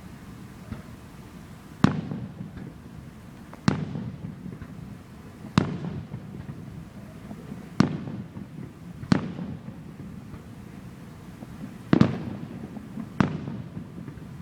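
Aerial firework shells bursting: seven sharp booms, one to three seconds apart, each trailing off in a short echo.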